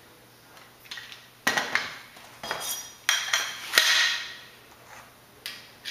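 Square aluminium tubes and metal tube connectors clinking and clattering as they are handled and set down on the worktable: a handful of sharp metallic knocks with a brief ringing tone, starting about a second and a half in.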